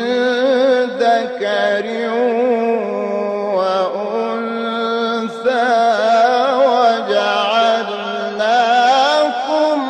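Egyptian Qur'an reciter chanting in the ornamented mujawwad style: long held phrases, his pitch wavering and gliding through melismatic runs, with short breaths between phrases.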